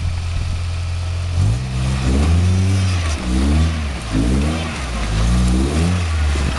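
Toyota 4x4's engine running low and steady, then revved in about four short surges as it works the truck over a rock ledge.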